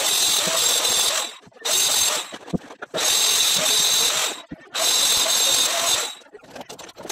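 Electric angle grinder cutting into a concrete wall, running in four bursts of about a second each with short pauses between them, with a steady high whine over the grinding noise.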